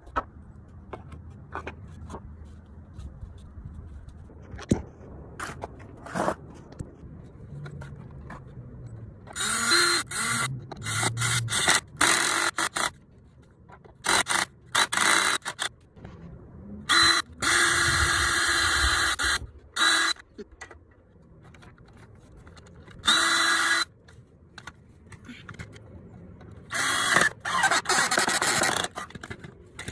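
Cordless drill driving screws into a wooden board in short runs of a second or two, about ten in all, with the motor whining under load and stopping between runs. Before the first run, for about nine seconds, there are only scattered knocks of wood and tools being handled.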